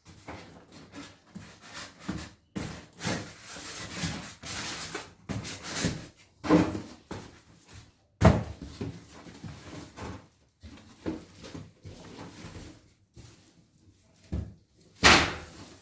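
Handling noises: irregular knocks, clatter and scraping as hard objects are moved and set down on a work surface, with a sharp knock about eight seconds in and another loud one near the end.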